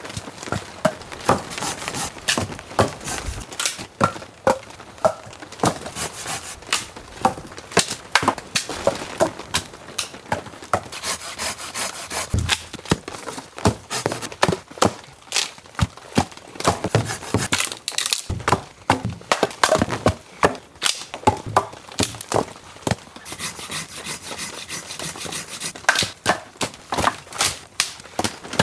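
Wet dead branches being snapped by hand and the broken sticks tossed onto a pile: many sharp cracks, snaps and wooden thunks, over a steady hiss of rain.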